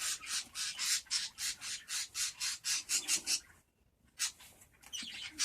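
Rapid scraping strokes against the packing tape of a mailed package being worked open by hand, about five a second. The scraping stops about three and a half seconds in, with a couple more strokes near the end.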